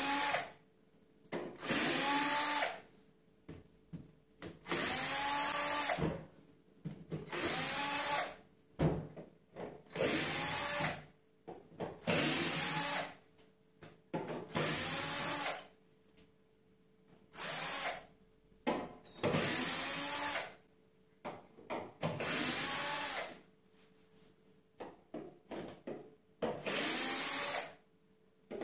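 Cordless drill-driver backing screws out of particleboard cabinet panels in about a dozen short runs of roughly a second each, with short pauses between them; the motor's pitch rises as each run spins up.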